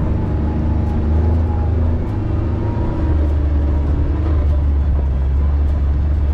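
Vehicle driving over a rough dirt trail: a steady low rumble of engine and tyres, with scattered light clicks and rattles.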